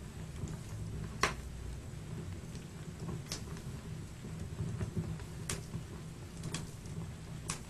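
Wood fire burning in a fireplace: a low steady rumble with sharp crackling pops at irregular intervals, about one every second or two.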